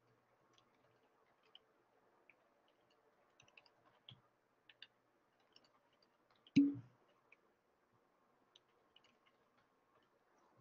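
Faint, scattered small clicks, with one much louder thump about six and a half seconds in, over a faint steady hum.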